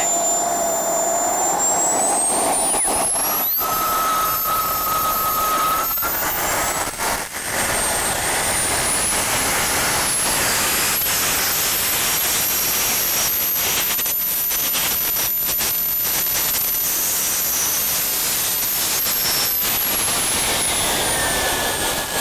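Turbojet engine of an RC model jet running on a static thrust test: its whine rises as it is throttled up about two seconds in and again around eight seconds, holds at a high pitch, then falls near the end as it is throttled back.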